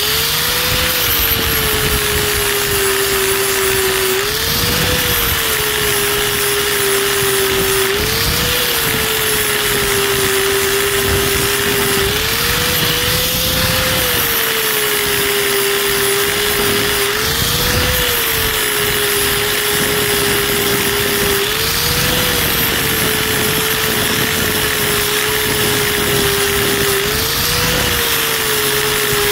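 A 4-inch angle grinder with an 80-grit flap wheel runs continuously, grinding the rubber side lugs off an RC crawler tire's sidewall. Its steady whine rises briefly in pitch every few seconds between light passes and drops back as the wheel bears on the rubber.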